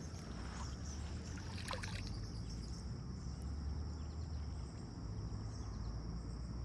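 Steady rushing river water with a low rumble, a brief scrape just before two seconds in, and a thin, steady high tone joining from about two seconds in.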